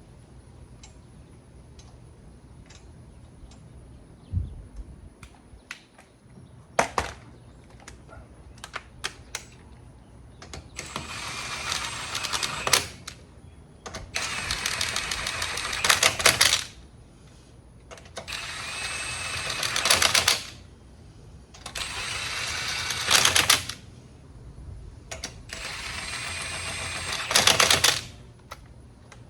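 Impact wrench running down lug nuts: a few light clicks and taps, then five separate bursts of rapid hammering about two to three seconds long each, each growing louder as the nut seats.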